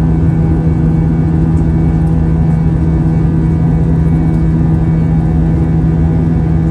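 Airbus A320 jet engines and rushing air heard inside the passenger cabin during the climb after takeoff: a loud, steady drone with a strong low hum and fainter steady tones above it.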